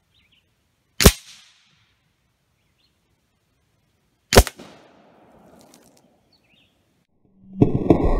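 Two sharp shots from a .25 calibre Avenger air rifle, about three seconds apart, then a loud blast lasting over a second near the end as a liquid-filled plastic bottle is hit and bursts.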